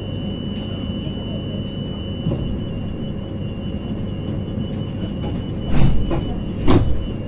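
Inside a Bergamo T1 tram standing at a stop: a steady low hum with a thin, steady high whine over it. Near the end come two loud thumps, less than a second apart, and the whine stops.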